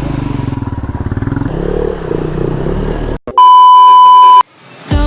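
Motorcycle engine running with an even pulse, cut off abruptly about three seconds in. A loud, steady, high-pitched bleep lasting about a second follows, a censor-style tone.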